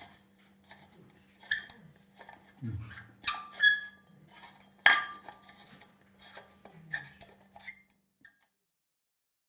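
Metallic clinks and taps as a ring light's aluminium housing is fitted onto a metal microscope lens and its knurled metal thumbscrews are handled and tightened, metal on metal. There is a dull thump about two and a half seconds in, the sharpest clink about five seconds in, and a faint steady hum under it all until the sound cuts off abruptly a little after eight seconds.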